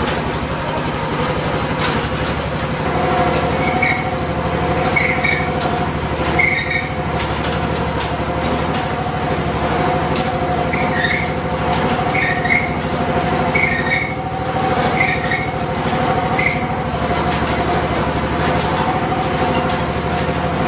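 Bluebird lawn aerator's small gasoline engine running steadily in gear. The drive chain and axle are turning, but the front drive isn't moving the machine. For a stretch of several seconds, twice over, a short high squeak repeats a little less than once a second.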